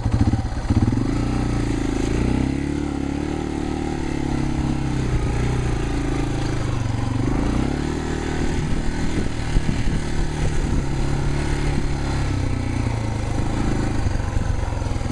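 Yamaha TW200's single-cylinder four-stroke engine running while riding a dirt track, the revs rising and falling again and again. Scattered knocks and clatter are heard in the second half.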